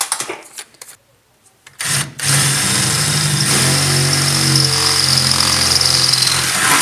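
Power drill spinning up with a short blip about two seconds in, then running steadily as its bit cuts a hole through the steel sheet metal of a pickup truck's bed wall.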